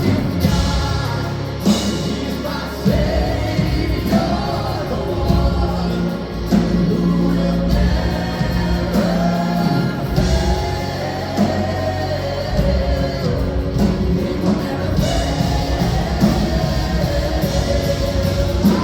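Intro music: a song with lead and backing vocals over a band, in a gospel style.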